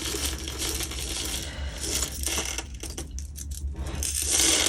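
Small beads rattling and clattering, a quick run of tiny clicks that grows louder near the end.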